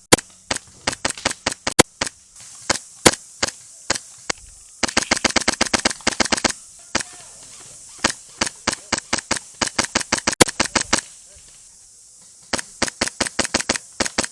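Airsoft rifles firing: sharp single shots, then several rapid full-auto strings of roughly a dozen shots a second, starting about five seconds in, again around eight seconds and near the end.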